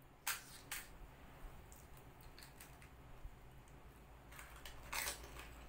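Crisp fried puri shells cracking as they are poked open and eaten. Two sharp cracks come near the start, then a few lighter clicks, then a longer crunchy burst near the end.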